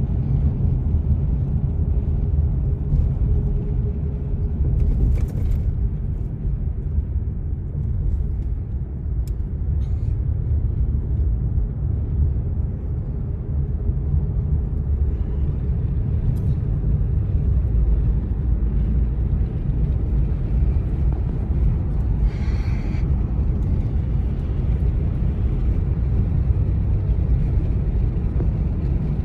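Car driving, heard from inside the cabin: a steady low rumble of road and engine noise, with a short hiss about three-quarters of the way through.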